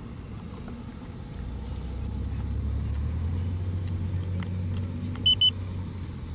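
Digital LiPo battery capacity checker giving two short high beeps about five seconds in as it powers up on the battery's balance lead. Under it, a low rumble swells from about a second and a half in.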